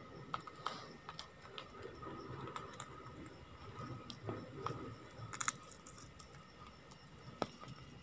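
Ring-necked parakeet pecking at and cracking seeds on a hard tiled floor: faint, scattered beak clicks and taps, with a sharper cluster of clicks about five and a half seconds in.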